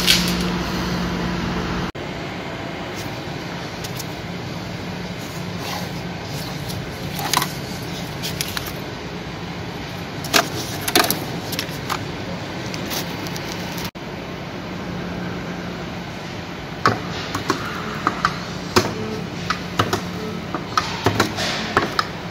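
A steady low mechanical hum, with scattered metallic clicks and clinks of tools and parts being handled in a car's engine bay. The clicks come more often in the second half.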